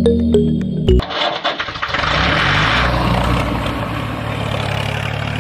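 A few plucked synth music notes, then about a second in a tractor-type engine starts, rattling briefly before it settles into steady running.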